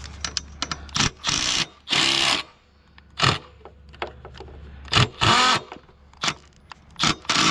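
Milwaukee M12 cordless impact driver run in a string of short bursts, hammering bolts tight on a ladder's rung locks.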